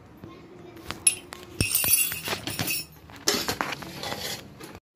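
Glass tumbler clinking against a steel cooking pot: a few sharp clinks and knocks about a second in, then two spells of scraping and rustling as the cookware is handled.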